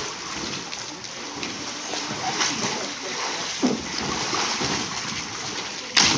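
Pool water splashing and sloshing as trainees in life jackets move about beside an inflatable life raft, then a sharp, loud splash near the end as a person hits the water.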